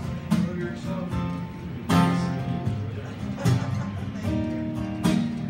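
Acoustic guitar strummed in a slow chord pattern, with a strong strum about every second and a half and lighter strums between.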